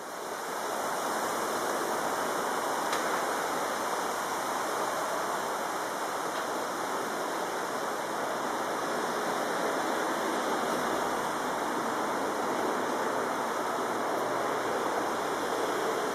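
Steady rushing roar of motorway traffic, even throughout, with no single vehicle standing out.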